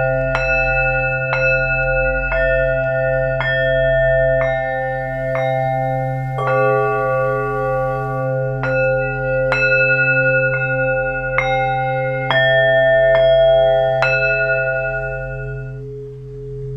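Tibetan singing bowls struck with a mallet, about once a second, at several different pitches, each strike ringing on in long overlapping tones over a steady low drone. The strikes stop near the end and the ringing fades.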